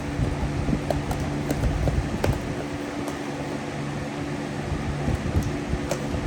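A steady background hum, like a fan or air conditioner, with a few short sharp clicks and taps from a shipping package being handled for unboxing.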